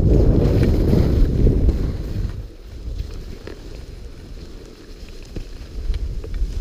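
Wind buffeting the microphone while skiing downhill: a low rumble, loud for the first couple of seconds, then easing off.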